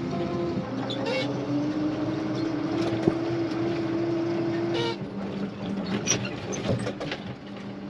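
Farm tractor engine running steadily with scattered clanks and rattles from the machinery. The engine note shifts about five seconds in.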